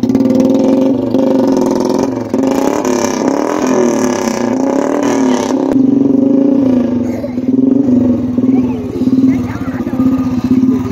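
Royal Enfield Bullet's single-cylinder engine running loud, its exhaust blowing through a loudspeaker horn tied to the silencer. It revs harder and sounds brighter for a few seconds about two seconds in, then settles back to a steady pulsing beat.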